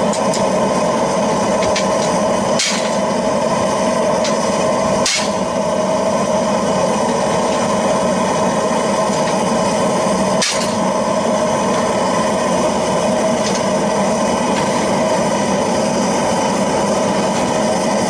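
Homemade waste-oil burner running steadily with its forced-air feed. Three sharp metal clunks sound about two and a half, five and ten and a half seconds in, as freshly cast aluminum ingots are knocked out of a cast-iron ingot mold onto a steel table.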